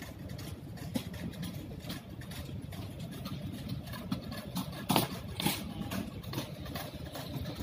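Steady low rumble of a large airport terminal hall, with scattered clicks and knocks and two louder knocks about five seconds in.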